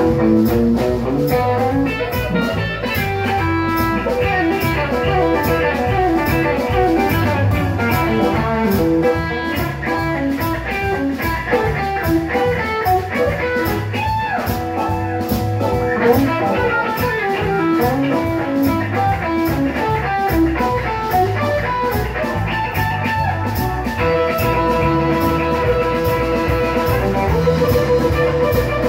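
Live blues band: an amplified Stratocaster-style electric guitar plays a lead solo with bent notes over a drum kit, cymbals ticking steadily. About three-quarters of the way through, the guitar moves to longer held notes.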